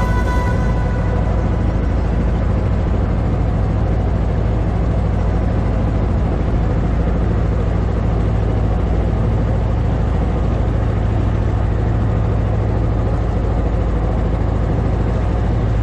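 Small fishing boat's motor running steadily underway, a constant low drone with water rushing along the hull.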